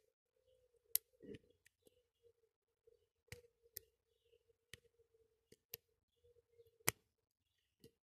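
Lock pick working the pin stack of a brass padlock: an irregular scatter of sharp metallic clicks, the loudest about a second in and near the end, as the springy pins are lifted and snap back against the curved hook under tension.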